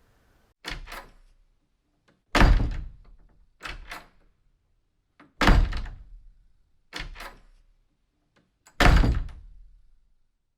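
A heavy door shut hard three times, about three seconds apart, each slam with a deep, fading boom. A lighter double click comes before each slam.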